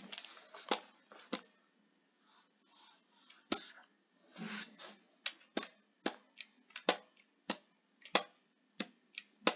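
Faint, irregular clicks of a computer mouse, a few at first and then coming more often through the second half.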